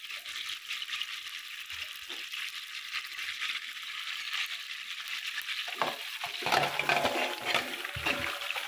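Hot cooking oil sizzling in a pot, with stirring. About six seconds in, the frying grows louder, with a few knocks, as raw chicken pieces go into the hot oil.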